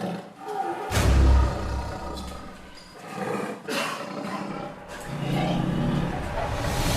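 Dramatic animal roars and growls laid over a cinematic sound bed, with a deep boom about a second in, a couple of sharp hits later, and a low rumble building near the end.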